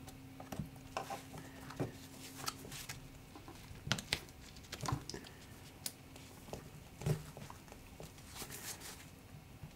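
Faint, scattered small clicks and taps with light glove rustle as gloved fingers and a pointed tool seat a replacement display's flex-cable connectors on an iPhone 12 Pro's logic board; the sharpest clicks come about 4 and 7 seconds in.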